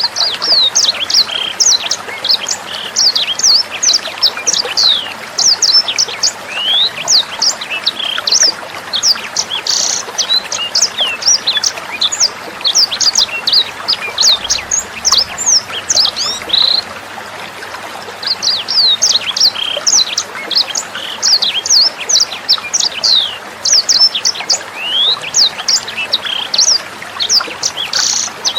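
Sanger bird singing a rapid run of sharp, high chirps over the steady sound of trickling water, with a brief pause in the song about two-thirds of the way through.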